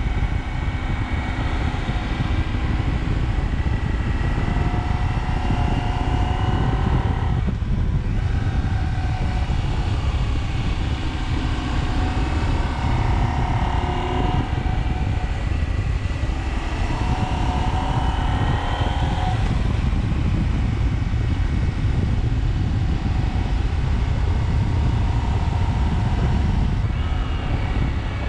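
KTM 790 Adventure's parallel-twin engine pulling up through the gears, its pitch rising three times with a short break between rises as it shifts. A heavy rush of wind and road noise runs underneath.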